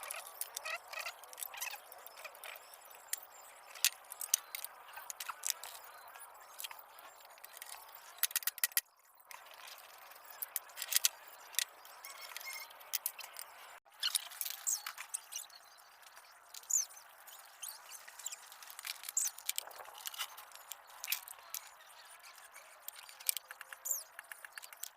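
Scattered clinks, taps and scrapes of hand work on the metal parts of an old, rusty manual ice shaver, with a few brief squeaks.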